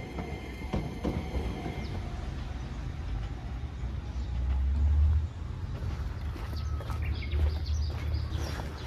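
Enoden (Enoshima Electric Railway) train running with a low rumble that swells about halfway through, with scattered clicks from the wheels and track near the end.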